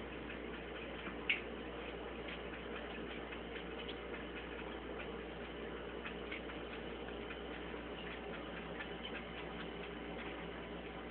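Thin stream of water running from a kitchen faucet into a stainless steel sink: a steady trickle with many small irregular ticks of drops and splashes on the steel, and one sharper click about a second in.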